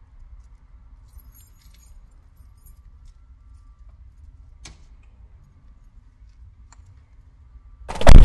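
Car keys jingling faintly, then a single click a few seconds later; near the end a loud low thump is the loudest sound.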